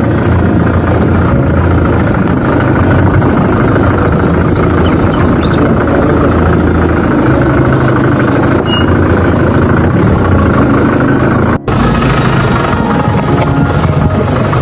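A vehicle's engine and road noise, steady and loud while driving, broken by a sudden cut about twelve seconds in.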